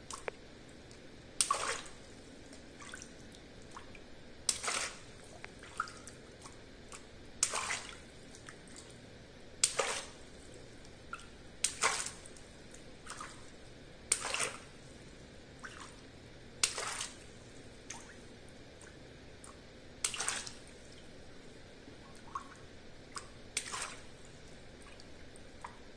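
Small water balloons popped one after another with a pin: about nine sharp pops, one every two to three seconds, each followed by a brief splash of water.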